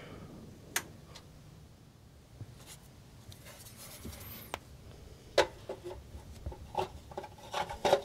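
Quiet handling sounds of engine parts being refitted: a few sharp clicks and small knocks with light rubbing, as the electrical connector goes back onto the idle air control valve and the flame arrestor is set back over the throttle body.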